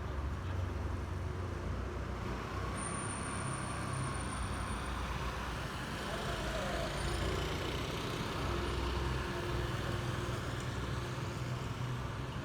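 Steady city street traffic noise: a continuous low engine rumble with the hiss of passing vehicles.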